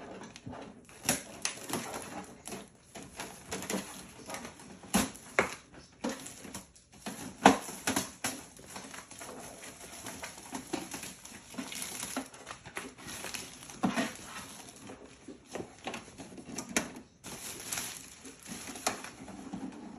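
Clear plastic wrapping bag crinkling and rustling as it is pulled off a printer, in irregular crackles with frequent sharp snaps.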